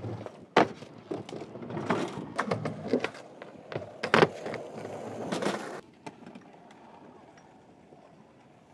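Skateboard wheels rolling on a wooden ramp, with sharp clacks of the board popping and landing. The loudest come about half a second in and about four seconds in. After about six seconds the sound drops to faint outdoor background.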